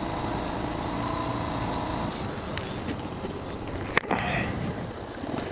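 Motorcycle engine running at low revs as the rider brakes hard and slows, under a steady rush of wind and road noise. A single sharp click about four seconds in.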